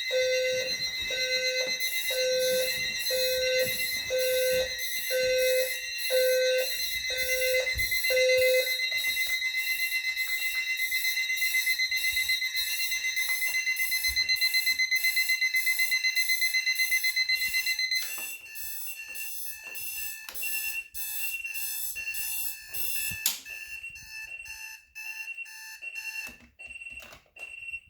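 Several electronic alarm clocks beeping at once, each with its own pitch and rhythm. A lower beeping stops about a third of the way in and a loud rapid trill cuts off about two-thirds in, leaving a few higher beeps that thin out to a single one near the end.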